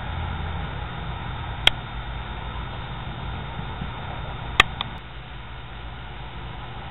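Steady low hum and hiss broken by two sharp clicks about three seconds apart. The second click is the loudest sound and is followed at once by a fainter click.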